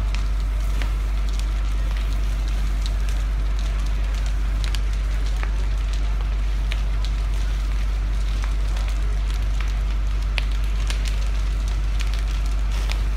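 A wooden house fire crackling and popping, with scattered sharp snaps over a steady low rumble.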